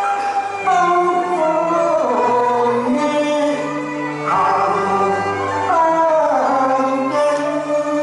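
A man singing a Cantonese opera (粵曲) song into a hand microphone, his voice gliding between long held notes, over instrumental accompaniment with low sustained notes underneath.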